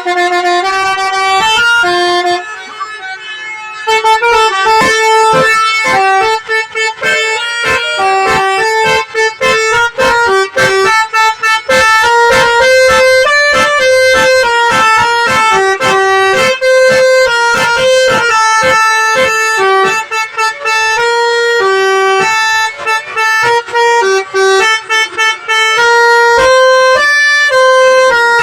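Basuri multi-tone telolet bus horn playing a fast melody in sharp, stepping horn notes, with a brief quieter dip about two and a half seconds in.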